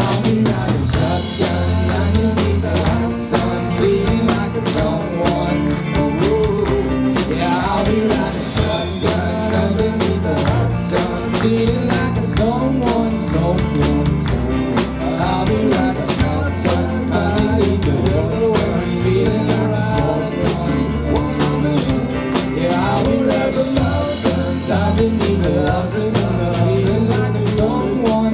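Live band music: drum kit, guitars and bass with singing, playing at a steady beat.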